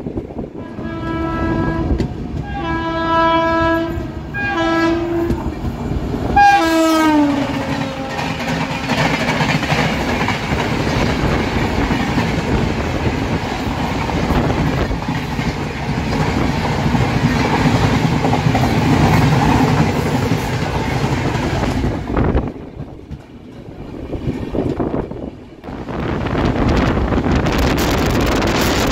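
Horn of an oncoming Indian Railways express train, sounded in three short blasts and a fourth whose pitch drops as it passes, followed by the roar and clatter of its coaches rushing past close alongside for about fifteen seconds. The noise dips briefly near the end and then picks up again as the trains keep running.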